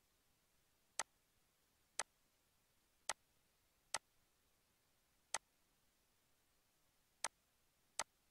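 Computer mouse clicking: eight sharp single clicks, about a second apart but unevenly spaced, with near silence between them.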